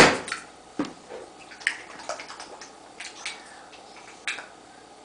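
A young girl's short wet mouth and breath sounds, sniffs and lip smacks, coming every half second to a second, with the loudest at the very start: her reaction to the bad taste of medicine she has just swallowed.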